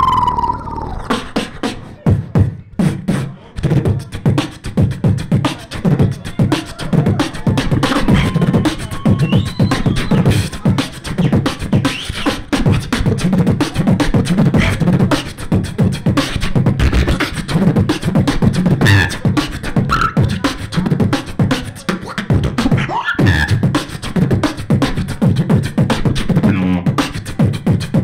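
Live human beatboxing into a cupped handheld microphone: a dense, fast rhythm of vocal kick and snare hits with strong low bass pulses, broken now and then by short pitched vocal glides.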